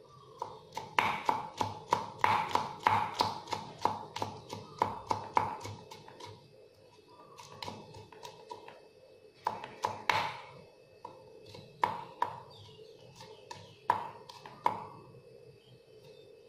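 Kitchen knife chopping garlic on a round wooden chopping board: quick, repeated knocks of the blade on the wood for about the first six seconds, then short, scattered runs of chops.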